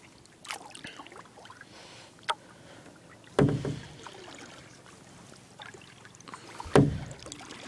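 Kayak being paddled: two heavier paddle strokes in the water, about three and a half seconds apart, with a few lighter clicks in between.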